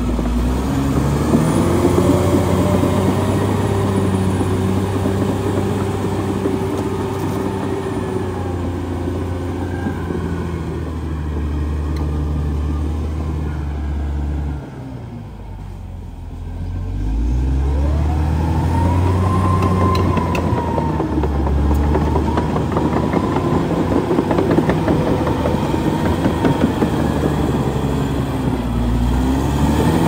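Caterpillar D6R XL bulldozer's diesel engine working as the dozer pushes soil with its blade, the engine note rising and falling. About halfway through it drops off and goes quieter for a couple of seconds, then picks up again.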